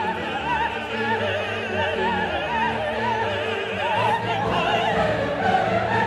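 Background music: classical singing with a wide vibrato over orchestral accompaniment.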